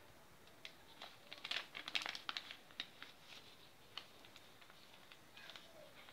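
A sheet of paper being folded and creased by hand: short crinkles and rustles bunched together from about a second in, then a few scattered clicks.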